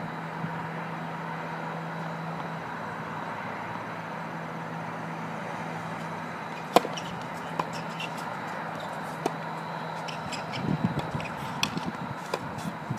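Tennis ball struck by a racket: a sharp, loud hit about seven seconds in, as the serve, then fainter hits a second or two apart as the rally goes on. Quick footsteps and scuffs on the hard court come near the end, over a steady background hum.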